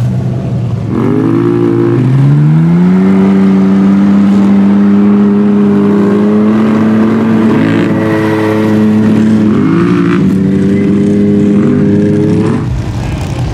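Truck engine revving hard in mud: a short rev about a second in, then it climbs and holds at high revs for about ten seconds, wavering a little, while the wheels spin and throw mud. The revs drop away suddenly near the end.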